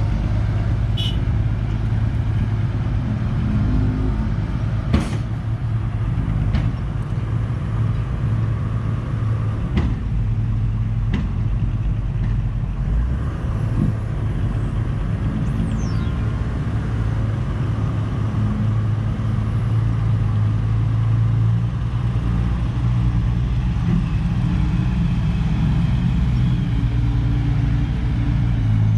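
Heavy diesel machinery engine running steadily with a low drone, from an excavator working alongside a dump truck. A few sharp metallic knocks come through, the loudest about five seconds in.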